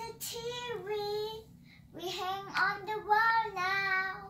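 A young girl singing: one phrase of held notes, a short break about a second and a half in, then a second phrase of held notes.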